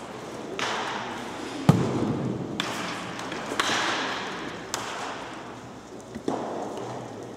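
Baseball bat hitting pitching-machine balls in batting practice: several sharp cracks and knocks, the loudest and heaviest a little under two seconds in.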